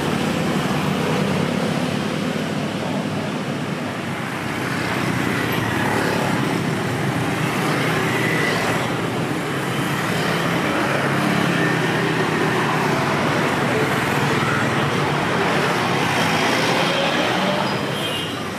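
Steady road traffic noise: vehicle engines and tyres on a busy street, holding at a constant level.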